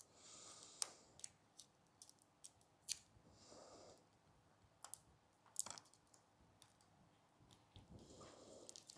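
Near silence with faint scattered clicks and soft rustles of close hand work, as film is wrapped around the end of a thin Dyneema line.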